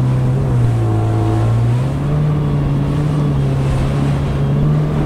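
Supercharged four-cylinder engine of a Kawasaki Ultra 310 LX jet ski running steadily at low cruising speed, with water rushing and splashing around the hull. The engine note dips slightly, then rises again about two seconds in.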